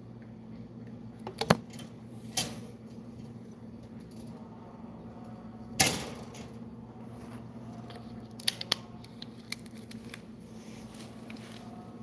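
Scattered sharp metallic clicks and taps as a green parakeet moves about its wire cage, the loudest about six seconds in, over a steady low hum.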